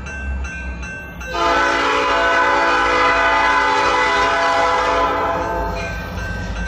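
Diesel locomotive air horn blowing one long blast that starts about a second in and holds for about four and a half seconds before easing off. Under it the EMD SD35 locomotive's diesel engine rumbles as the train approaches.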